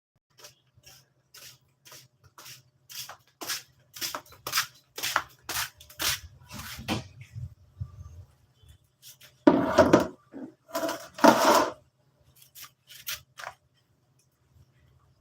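Hand scrubbing while cleaning household items: short rubbing strokes about two a second that grow stronger, then after a short pause two longer, louder scrubbing sounds, and a few light knocks.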